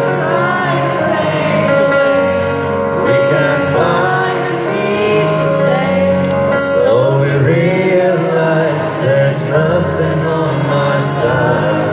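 Live rock band playing a slow ballad in an arena, singing over keyboard, recorded from among the audience.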